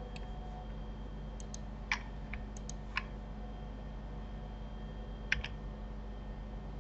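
Scattered clicks of a computer keyboard and mouse, a few at a time with pauses between, over a steady low hum.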